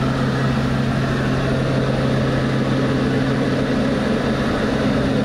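Propeller-driven skydiving plane's engine droning steadily in flight, heard from inside the cabin: a constant low hum over a steady rush of noise.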